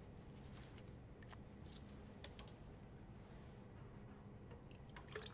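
Near silence: room tone with a few faint clicks and taps from glass vials and beakers being handled on a lab bench, one a little louder a little before the middle.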